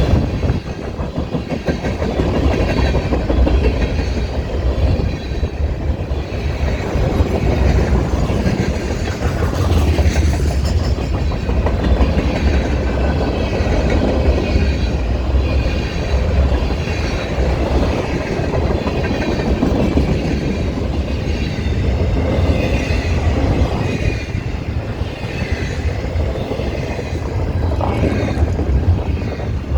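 Railcars of a CPKC train rolling past, wheels clicking over rail joints with a faint high squeal from the wheels, over a steady low rumble. Wind buffets the microphone.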